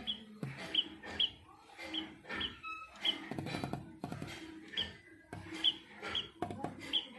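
A small bird tapping and pecking at a glass window pane in irregular sharp knocks, with short high chirps in between.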